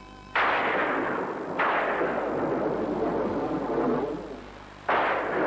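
Cartoon thunderstorm sound effect: three sudden claps of thunder, each fading out over a second or more, with rain falling.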